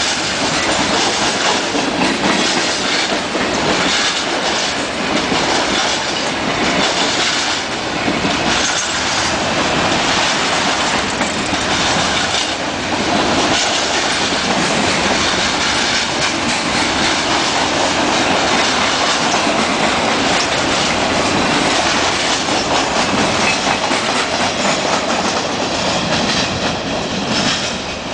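Freight train cars rolling past close by: a steady rumble and rattle of steel wheels on rail, with the clickety-clack of wheels over rail joints. The sound drops a little before the end as the last cars go by.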